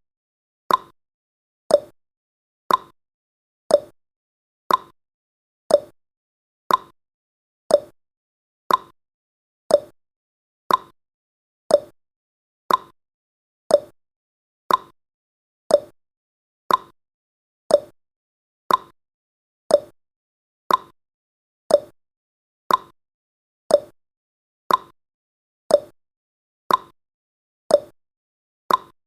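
Clock tick-tock sound effect of a countdown timer: one crisp tick each second, alternating between a higher and a lower tick.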